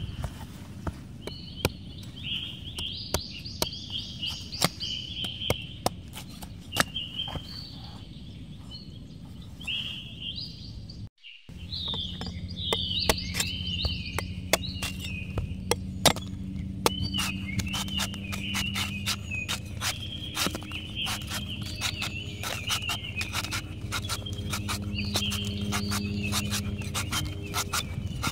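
A cleaver shaving and chopping the husk of a young green coconut against a wooden block: a long run of sharp cutting clicks and knocks, with birds chirping throughout. The sound drops out briefly about eleven seconds in.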